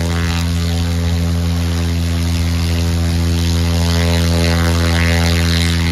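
The Sherwood E-KUB's electric motor and propeller running at a steady speed: an even, low-pitched hum.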